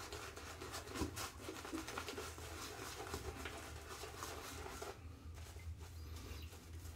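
Shaving brush working soap lather on a face: faint, irregular wet rubbing and small crackles, thinning out about five seconds in.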